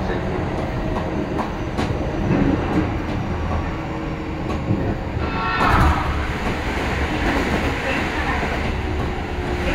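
Keio Line commuter train running, heard from inside the passenger car: a steady rumble of wheels on the rails with occasional knocks. About five and a half seconds in there is a brief louder rush with a falling whine.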